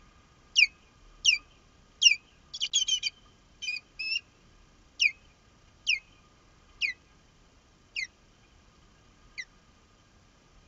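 Osprey calling: a run of sharp, falling whistled cries about once a second, bunched into a quick flurry about three seconds in, then spacing out and growing fainter toward the end.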